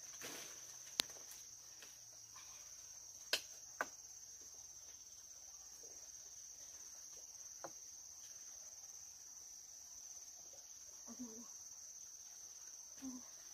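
Steady high-pitched insect chorus. Three sharp clicks fall in the first four seconds and a fainter one near the middle.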